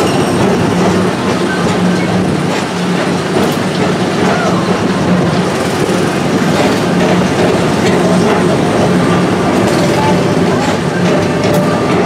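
Tomorrowland Transit Authority PeopleMover car rolling along its elevated track: a steady low hum under a continuous rumble, with a few faint clicks.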